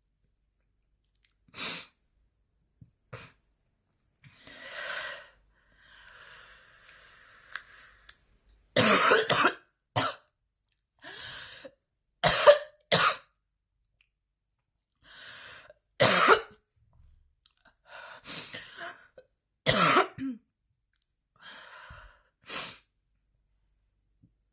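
A woman's coughing fit: repeated harsh coughs in short bursts, with hissing breaths drawn between them. The hardest run of coughs comes about nine to thirteen seconds in.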